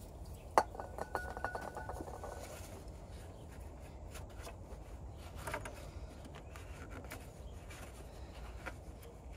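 Gloved hand rubbing paper towel over the metal thermostat mating surface of an engine, cleaning off oil. It makes faint rubbing and scraping with scattered small clicks, and one sharper click about half a second in.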